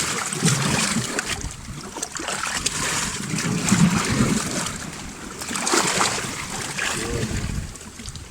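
Sea waves washing and splashing over shore rocks, swelling and ebbing in several surges, with wind rumbling on the microphone.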